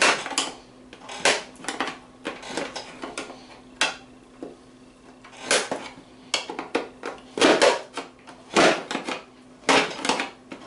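The thin steel lid of a Russian ammunition spam can being punched and cut open with the can's supplied metal opening tool: an irregular series of sharp metallic crunches and scrapes, a second or two apart, some in quick pairs.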